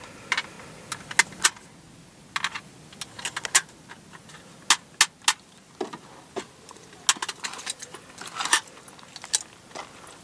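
A string of light, sharp clicks and clinks at irregular intervals, like small hard objects being handled.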